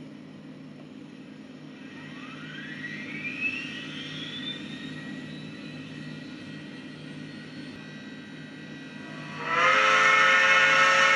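WOW sound decoder in a Bachmann 4-6-0 model steam locomotive playing locomotive sounds through its small speaker: a steady low hum with a whine rising in pitch over a few seconds, then, about nine and a half seconds in, a loud multi-tone steam whistle that is still blowing at the end.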